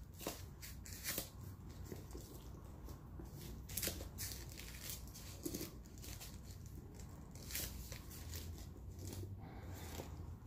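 Faint handling sounds of a quilted leather bucket bag's metal chain drawstring being pulled tight by hand: scattered light clicks of chain links with soft rustling.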